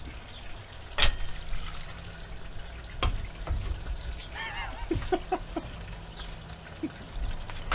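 Hot oil bubbling steadily in a pot fish fryer, with two sharp clicks about one and three seconds in and a few short vocal sounds in the middle.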